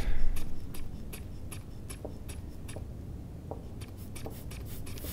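Handling noise of a manual blood-pressure cuff and stethoscope: a few soft rustles and puffs in the first half second, then scattered small clicks over a low steady rumble as the cuff is let down.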